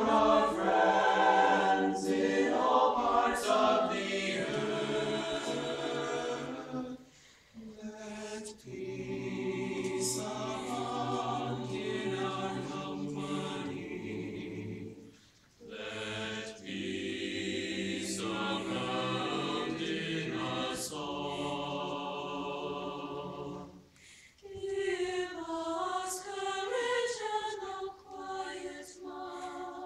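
Mixed high school chamber choir singing in parts, in sustained phrases broken by short pauses.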